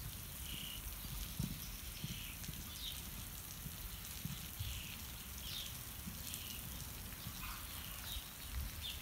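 Steady hiss of a water sprinkler spraying the sand arena. Faint short high chirps recur about once a second, with a few soft low thumps.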